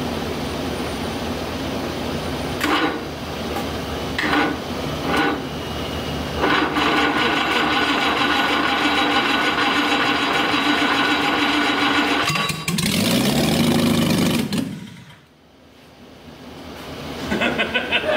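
Jaguar 2.4-litre twin-cam straight-six engine, freshly rebuilt, being started for the first time. It cranks on the starter with a few pops, catches about six seconds in and runs, then gets louder with falling pitch and is shut off about fifteen seconds in. It is run only briefly because it still shows no oil pressure.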